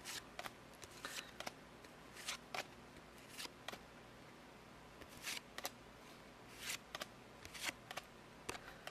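Trading cards being handled and flipped through by hand: a faint, irregular string of short clicks and rustles of card stock.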